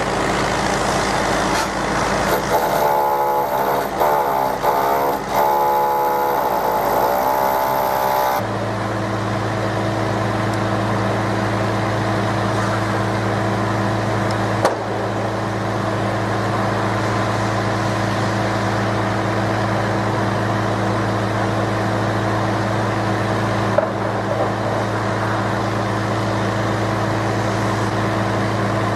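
A motor running steadily with a constant low hum. During the first eight seconds or so, wavering pitched sounds rise and fall over it. Two short knocks come about halfway through and near the end.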